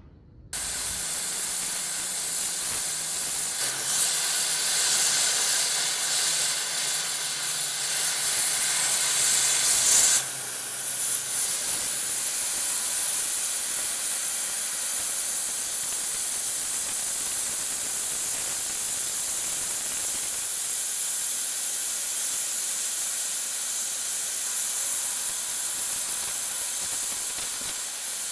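Oxy-fuel gas cutting torch hissing steadily as it cuts a hole through thick steel plate. The hiss starts abruptly about half a second in and eases slightly about ten seconds in.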